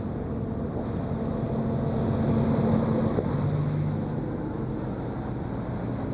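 A vehicle engine running steadily, with a low hum that swells towards the middle and then eases off.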